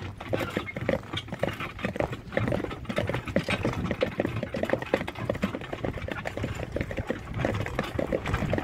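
Hoofbeats of a pair of harnessed horses on a sandy track, a quick irregular clatter mixed with harness jingling and the carriage rattling over a low rumble.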